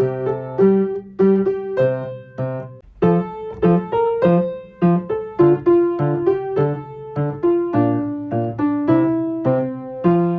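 Solo piano playing a simple children's-song accompaniment: a melody in the right hand over single bass notes in the left, with a brief pause about three seconds in.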